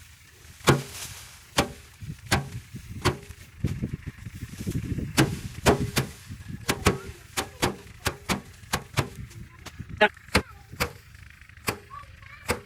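Bundles of cut rice paddy beaten by hand against a drum to thresh out the grain. The sharp knocks repeat steadily, a little more than once a second.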